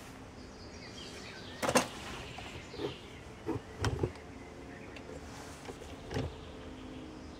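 A few short knocks and bumps from handling the camera and objects close to the microphone, the loudest about two seconds in, over a steady outdoor background with faint bird chirps.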